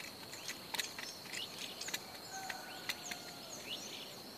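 A knife scraping a ferrocerium rod in a few short, sharp strokes, over a steady high insect drone and scattered short bird chirps.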